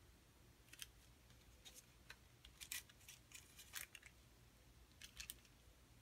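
Faint, short rustles and light taps of paper cardstock strips being handled, slid and laid down on a scrapbook page. They come in a few brief clusters over a low steady hum.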